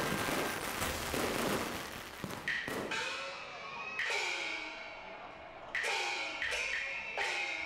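Chinese opera percussion: gongs struck about eight times at an uneven beat, each ringing stroke sliding down in pitch. A dense burst of noise fills the first two seconds before the strokes begin.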